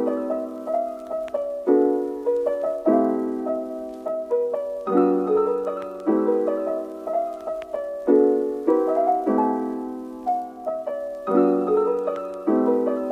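Background music: a gentle piano piece, with chords struck every second or two, each fading before the next.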